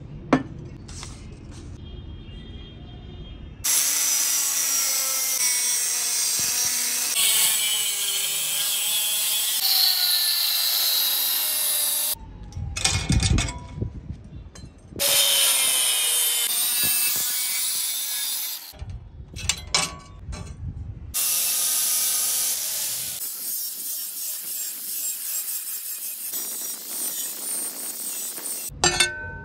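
Angle grinder with a cut-off disc cutting through the steel body of an old diamond saw blade, a loud hissing whine whose pitch wavers as the disc bites. The cutting stops and starts several times, with shorter stretches of lower, duller handling sound in between.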